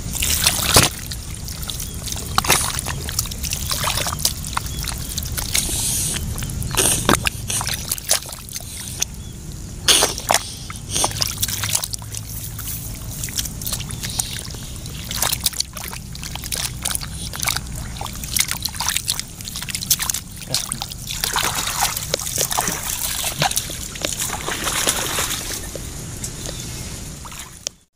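Water trickling, sloshing and splashing into a muddy eel burrow in a rice-field bank, with many irregular splashes over a steady running-water hiss.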